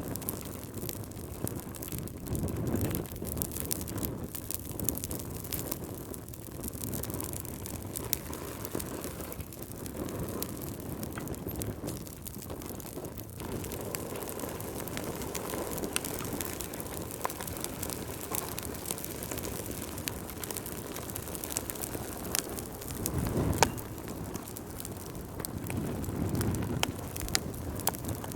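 Wood fire burning in a fireplace: the low rush of the flames under frequent sharp crackles and pops, with one louder pop late on.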